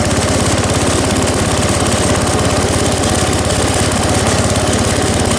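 Gravely C10A tractor's single engine running steadily, with an even, rapid firing beat.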